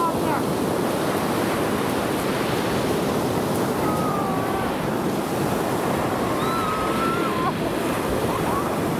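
Black Sea surf breaking and washing on the beach in a steady rush, with wind buffeting the microphone.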